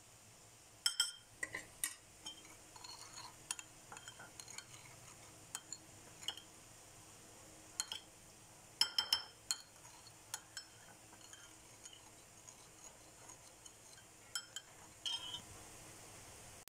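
Metal spoon clinking and scraping against a ceramic bowl while stirring spices into a liquid: irregular taps, with louder clusters of clinks about a second in, around nine seconds in and near the end.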